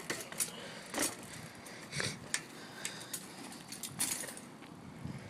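BMX bike rattling, with irregular sharp clicks and knocks, about a second or so apart, as it is handled or ridden into tricks.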